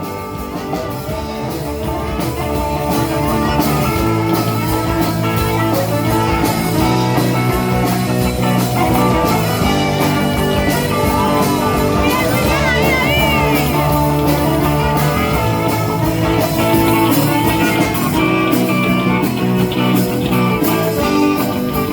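Live rock band playing an instrumental passage, full band with a melodic lead line that bends and wavers about halfway through.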